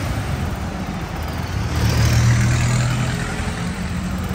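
Street traffic: a motor vehicle's engine passing close by, growing louder and then fading, loudest about two seconds in, over a steady low engine hum.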